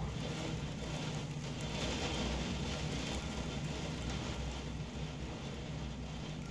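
Heavy rain in a strong wind: a steady hiss of rain with a low rumble underneath.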